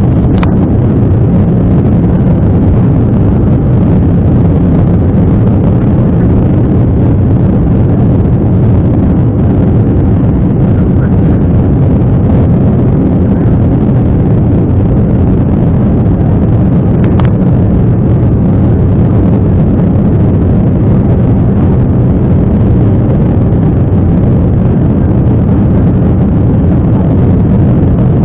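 Steady jet engine and airflow noise inside an airliner's cabin during the climb after takeoff, a deep, even rumble with no change in level. A faint brief click about two-thirds of the way through.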